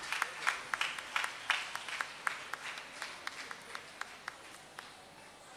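Audience applauding, the claps dense at first, then thinning out and dying away about five seconds in.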